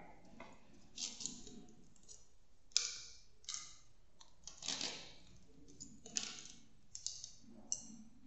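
Glass thermometers and small items being handled on a hard lab bench top: a scattered series of light clicks and taps, seven or eight in all, at irregular intervals.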